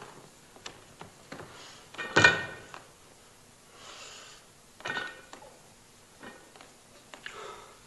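Loaded iron barbell clanking as it is gripped and lifted off a wooden stage: scattered light knocks, a louder ringing clank about two seconds in and another about five seconds in as the bar comes up.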